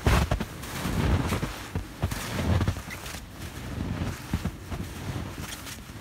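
Footsteps trudging through deep snow, each step a low crunch, uneven and louder in the first few seconds, then softer.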